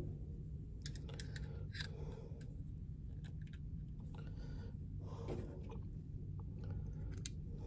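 Faint scattered clicks and rustles of handling over a low steady hum; no gunshot.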